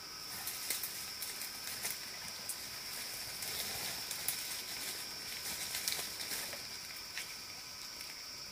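Footsteps crackling and rustling through dry leaf litter and brush, a run of irregular snaps and rustles that die away near the end, over a steady high-pitched drone of forest insects.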